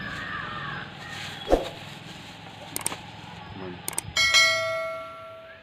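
A thump about a second and a half in, then a couple of clicks and a bright bell-like chime that rings out and fades, the sound effect of an on-screen subscribe-button animation.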